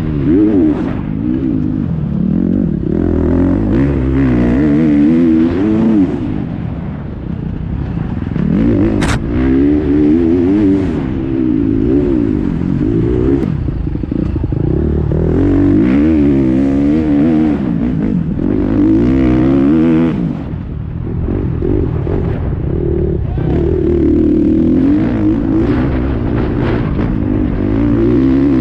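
KTM 350 XC-F dirt bike's single-cylinder four-stroke engine, revving up and down over and over as the bike is ridden through the gears, heard from the rider's helmet.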